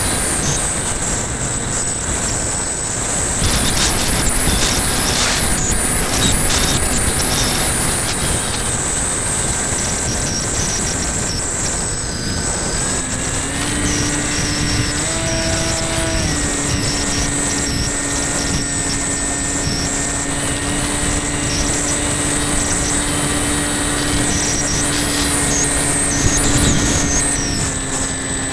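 Electric motor and propeller of a radio-controlled model plane, heard from its onboard camera as a steady hum under heavy wind rush. The hum rises in pitch a little about halfway through, goes higher still for a couple of seconds, then holds and drops back near the end, following the throttle.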